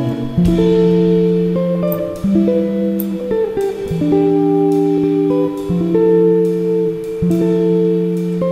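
Background instrumental music: a slow melody of held notes, each changing to the next about once a second.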